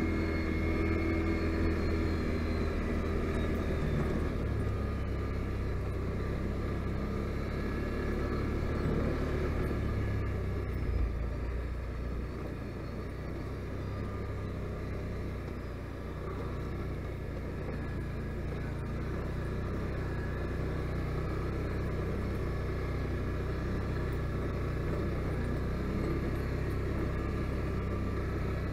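Can-Am Outlander 570 ATV's V-twin engine running as the quad is driven, a steady low note that shifts a few times, dips in level about twelve seconds in and then slowly builds back.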